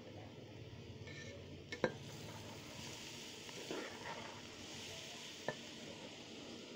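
Metal spoon stirring chopped cabbage frying in oil in a steel pot, with a soft sizzle that grows a little stronger partway through. The spoon clinks sharply against the pot twice, the louder one about two seconds in.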